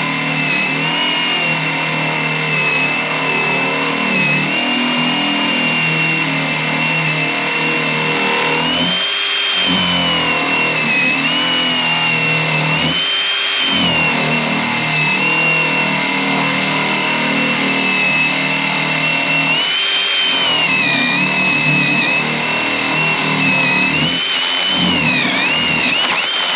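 Mac Tools 1/4-inch brushless impact driver drilling a hole, its motor whining steadily under load and dipping in pitch a few times as the bit bites. It stops at the very end.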